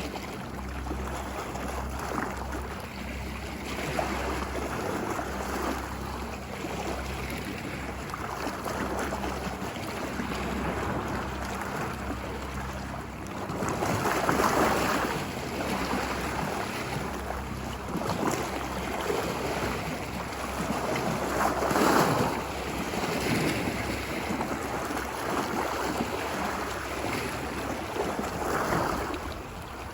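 Ocean waves washing ashore, a steady surf hiss with a low rumble, swelling into louder breaking waves about halfway through and again twice later.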